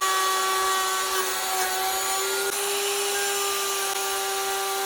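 Electric wood router running at steady speed with a constant high hum over a hiss, cutting a channel in the hardwood of a mallet head.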